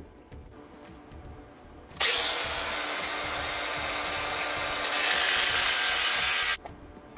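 Cordless angle grinder running with its disc against a piece of angle aluminum clamped in a bench vise. It starts abruptly about two seconds in, grows louder for its last second and a half, and cuts off suddenly near the end.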